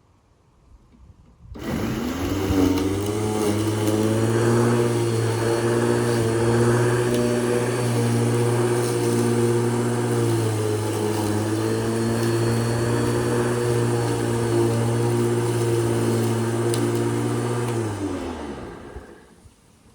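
Lawn mower starting abruptly and running at a steady speed, then switched off and winding down with falling pitch near the end.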